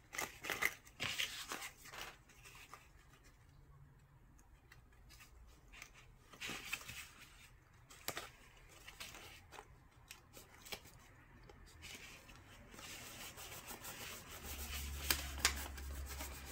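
Stiff cardstock being handled: rustling, rubbing and creasing with scattered soft clicks and taps as fingers press the taped seams of a paper box together.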